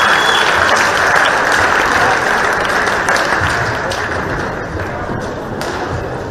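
Arena crowd applauding the end of a badminton rally, the applause dying down over the last couple of seconds.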